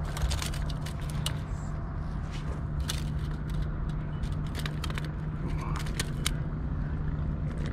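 Fishing reel cranked to bring in a hooked fish: irregular clicks and light scrapes over a steady low hum of road traffic.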